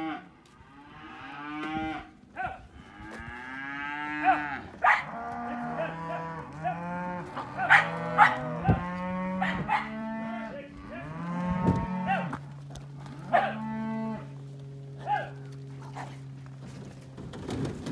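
A herd of beef cattle mooing and bellowing, many calls overlapping one after another, with one long low moo held near the end. A few sharp knocks sound among the calls.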